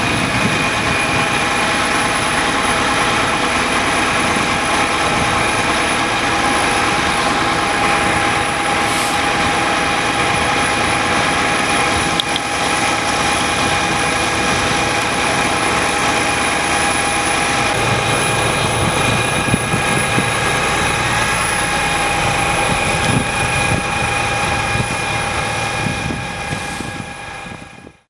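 Steady drone of running engines or machinery, with several steady whining tones laid over it. It fades out near the end.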